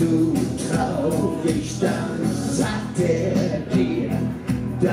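Amplified live Schlager pop: singers' voices through the PA over backing music with a steady beat.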